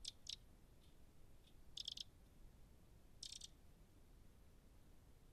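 A Eurasian wren gives short, dry, high-pitched rattling calls against a near-silent background: two quick ones at the start, a stronger rattle about two seconds in, and another a little after three seconds.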